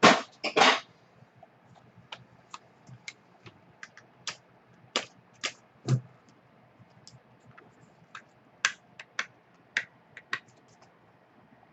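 Hands handling small white cardboard trading-card boxes: two loud rustling scrapes in the first second, then scattered light clicks and taps as a box is picked up and opened.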